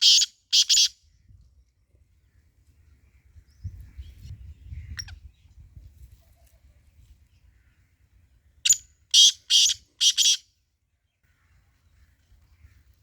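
Sindhi teetar (francolin) calling: a loud, harsh call of about four rasping notes in quick succession, ending right at the start and given again in full about nine seconds in. A faint low rumble sounds in between, around four seconds in.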